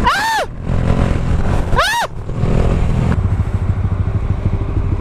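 Motorcycle engines running, with two short high squeals that rise and fall in pitch, about a second and a half apart near the start.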